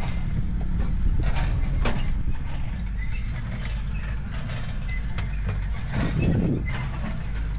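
Low steady engine rumble with scattered metallic clicks and clanks over it, and a heavier thud about six seconds in.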